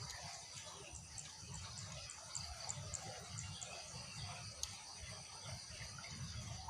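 Faint steady high-pitched insect trilling, with a run of quick ticking chirps from about one to three and a half seconds in and a single sharp click a little later, over a low rumble.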